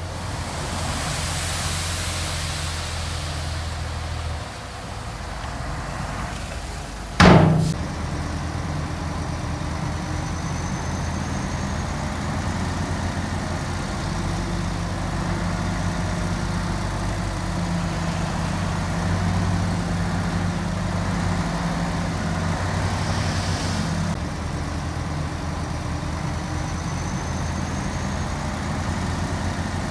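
Diesel engines of earthmoving machines, a bulldozer and dump trucks, running steadily, with a hiss in the first few seconds and one sharp loud bang about seven seconds in.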